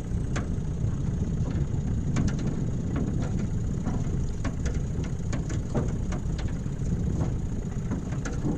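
Small splashes and light irregular clicks of lake water slapping against the side of an aluminum jon boat, over a steady low rumble.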